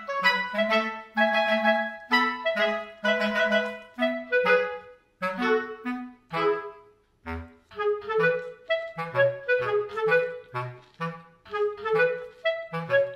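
Background music: a bouncy tune of short, evenly paced notes over a bass line.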